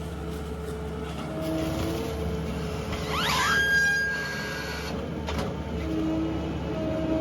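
Tractor engine running steadily while handling wrapped bales, with a brief rising whine about three seconds in that settles into a steady higher tone for a second or so.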